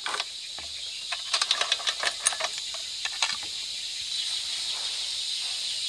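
Metal saw-chain links clicking and clinking as the chain is pulled by hand onto a chainsaw guide bar, a scatter of short clicks in the first three seconds, over a steady high hiss of insects.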